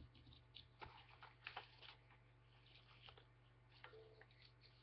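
Near silence with a low steady hum and a few faint taps and rustles of paper sheets being handled.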